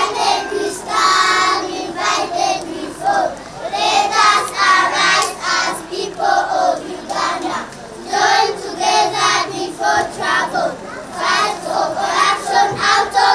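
A group of young children singing together into a microphone, one short phrase after another.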